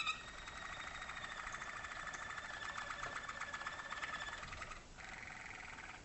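Waterslager (Malinois) canary song: a long, fast rolling trill, with a short break near five seconds before another, lower rolling phrase starts.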